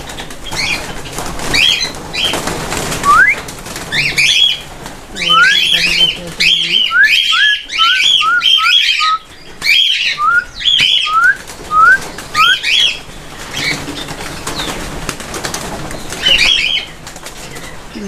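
A colony of cockatiels calling, with many short repeated chirps. In the middle comes a run of a dozen or so quick, short rising whistles, with a few lower calls under them.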